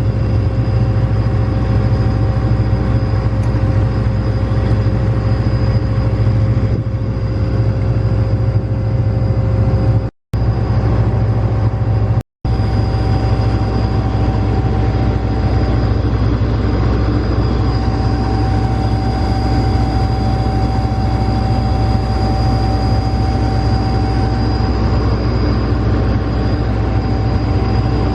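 Large diesel farm machine, likely the combine, running steadily: a loud low drone with a steady whine above it. The sound cuts out for an instant twice, about ten and twelve seconds in.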